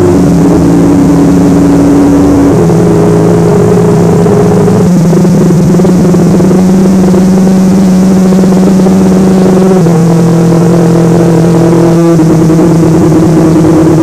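Emergency alert alarm tones, loud throughout: several steady pitches held together that jump to a new set of pitches every few seconds.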